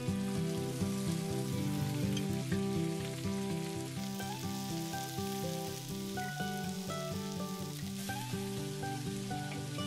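Diced onions and peppers sizzling as they fry in a Staub enamelled cast-iron oval cocotte while a wooden spoon stirs them, over background music.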